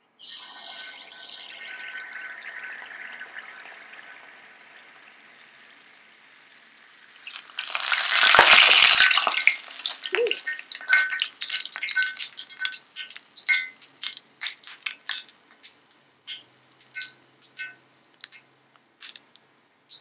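Cucur jawa batter sizzling as it is poured into hot oil in a wok, the hiss fading over several seconds. About eight seconds in comes a loud burst of sizzling, then scattered crackles and pops that thin out as the fritter fries.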